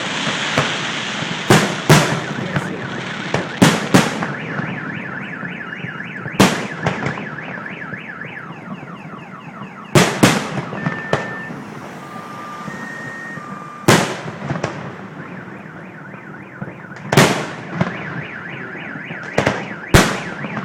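Fireworks shells bursting overhead: a dozen or more sharp bangs at irregular intervals. Under them, a car alarm wails continuously in repeating rising sweeps, with a few short beeps partway through.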